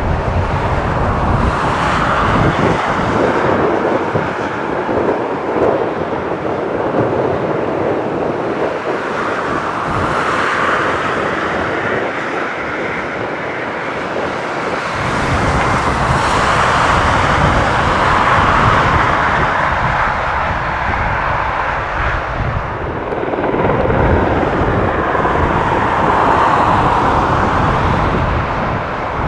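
Helicopter turbine and rotor noise, a steady loud whine and rumble that swells and eases a few times.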